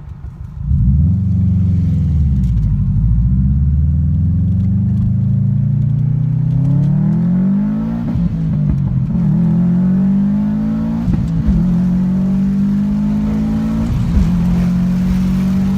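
Car engine accelerating hard, the revs surging a little under a second in and then climbing and dropping back at each gear change, about four times.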